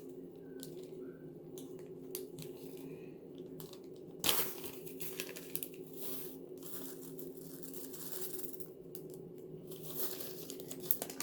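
Scattered rustling and crinkling as slime-making materials are handled, with a sharper noise about four seconds in, over a steady low hum.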